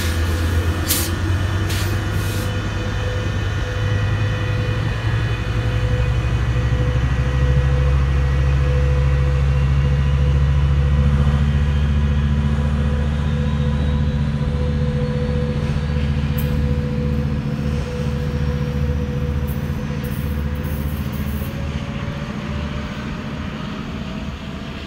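EMD F125 diesel-electric locomotive pushing a Metrolink commuter train out of the station. Its diesel engine runs loud and low, climbing in pitch a few seconds in as it powers up, then holds steady. A higher tone starts to rise near the end as the train gathers speed and draws away.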